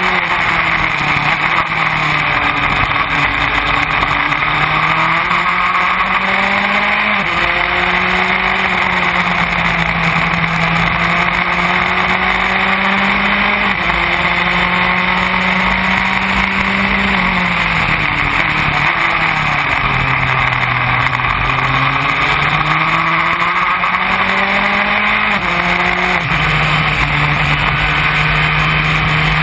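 Formula Enterprise open-wheel race car's engine heard onboard at racing speed, its pitch climbing and then dropping sharply at each upshift every several seconds. About two-thirds of the way through it falls away as the car slows, then climbs again through the gears, over steady wind and road noise.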